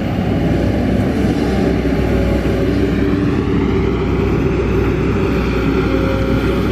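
Kobelco SK200 hydraulic excavator's diesel engine running at a steady working pace while the machine digs.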